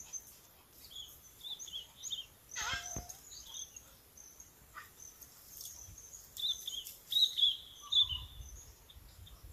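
Small birds chirping in quick, high, repeated calls, with one louder call that sweeps downward about two and a half seconds in. A low rumble comes in near the end.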